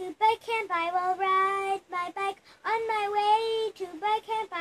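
A young boy singing unaccompanied, holding a long note twice with short sung notes in between.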